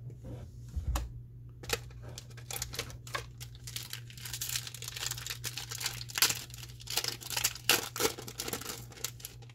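Foil Magic: The Gathering booster pack wrapper being torn open, crinkling and crackling in a dense run of sharp rustles that starts about a second and a half in.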